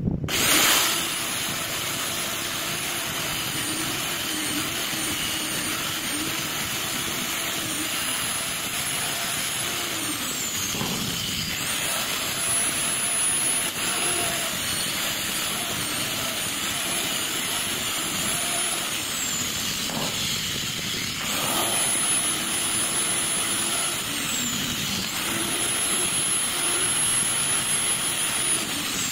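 Angle grinder running with an abrasive polishing wheel while steel hair-clipper parts are held against it, a steady motor whine that wavers and dips in pitch several times under the load of the work.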